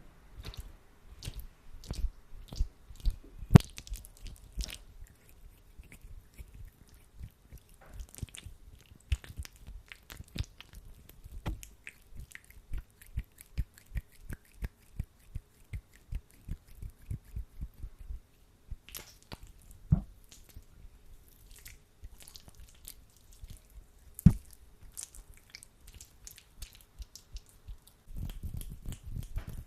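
Hands rubbing and squishing sticky aloe vera gel: a dense, irregular run of tacky clicks and squelches, with a few louder snaps.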